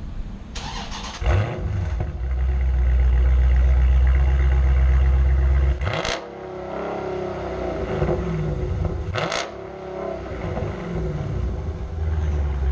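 Dodge Challenger Scat Pack's 6.4-litre HEMI V8 with its mufflers cut off, firing up about a second in and running at a loud, steady idle through the open exhaust. It is then revved twice in short blips, a few seconds apart.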